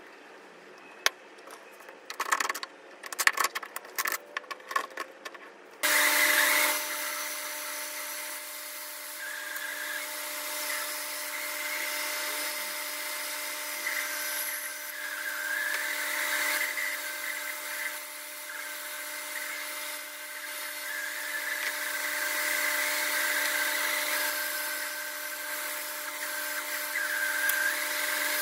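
A few sharp clicks and knocks from handling a wooden box on a workbench. About six seconds in, a Cutech bandsaw switches on and runs with a steady hum and whine, its pitch wavering a little as the blade cuts through the wood.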